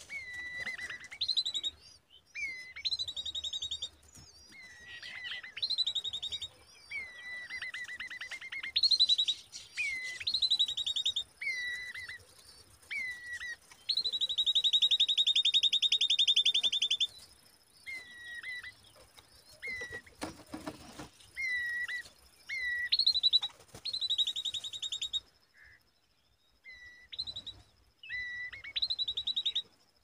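Common babbler nestlings begging at the nest: a run of short, repeated calls with a rising hook, mixed with higher, longer calls, one held for about three seconds about halfway through.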